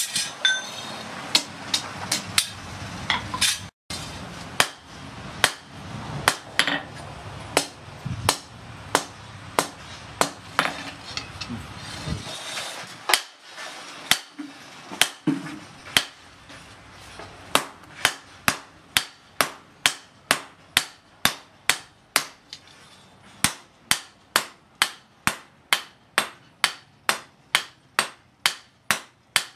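Hand hammer striking a red-hot steel sword blade on a steel anvil. The blows come irregularly at first, then settle into a steady rhythm of a little under two a second from about halfway.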